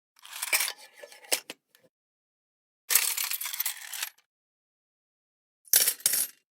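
Coins dropping and clinking in three separate bursts with dead silence between: a scatter of clinks that settles over about a second and a half, a denser jingle about three seconds in, and a short clatter near the end.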